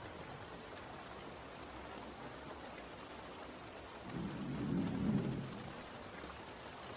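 Steady rain falling, with a low rumble of thunder that swells about four seconds in and dies away over a second or two.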